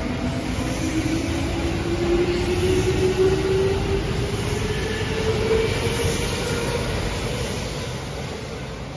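Kintetsu electric commuter train pulling away from a station and running past: the traction motors whine with a pitch that rises slowly as the train accelerates, over steady wheel-on-rail rumble. The sound fades near the end as the last car goes by.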